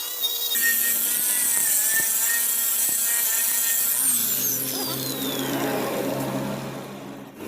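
Electric power grinder working stainless steel: a loud, hissing grind with a steady motor whine, then a whine that falls in pitch from about four seconds in as the tool winds down.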